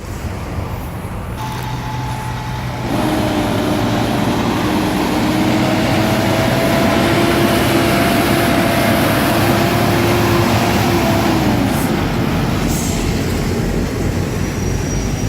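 Heavy truck traffic passing at highway speed: a steady rush of engine and tyre noise that swells over the first few seconds and holds. A faint steady whine runs through the middle and dips slightly near the end. No horn sounds.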